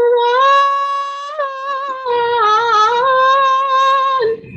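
A woman singing a Malay gurindam solo, drawing one word out over a long line of held notes with a quick wavering ornament about halfway. The voice stops shortly before the end.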